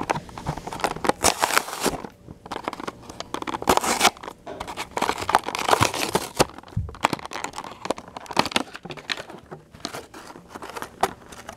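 Clear plastic blister and cardboard backing of a die-cast toy car's retail card being crinkled and torn open by hand, in irregular bursts of crackling with sharp clicks.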